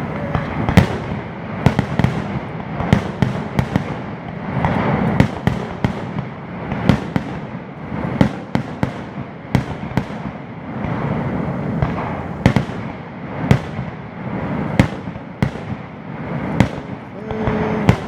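Aerial fireworks display: a continuous run of sharp bangs from bursting shells, roughly two a second at irregular intervals, over a steady crackling haze.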